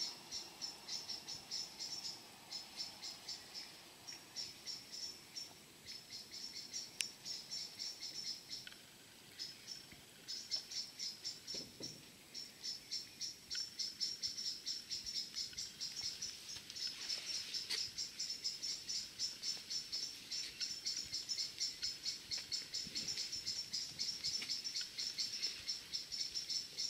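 An insect, cricket or grasshopper type, chirping in a fast, steady run of short high-pitched pulses, about four or five a second, with one brief pause partway through.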